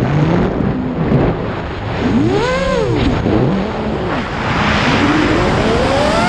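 Motors and propellers of a Martian II FPV racing quadcopter, heard from onboard: a whine that swoops up and falls back about two and a half seconds in, then climbs again near the end as throttle is added, over a steady rush of wind.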